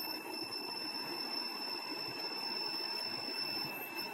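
Arduino earthquake detector's buzzer sounding a steady, high-pitched alarm tone, set off by the accelerometer sensing the device being shaken as a simulated earthquake.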